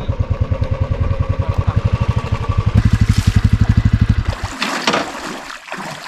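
Motorcycle engine running with an even, fast beat, louder from about three seconds in, then switched off at about four and a half seconds with the bike standing in shallow water. Water splashes and trickles around it afterwards.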